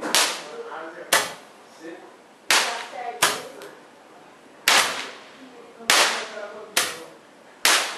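Handheld stick firework going off in a series of sharp bangs, eight in about eight seconds at irregular intervals, each dying away quickly.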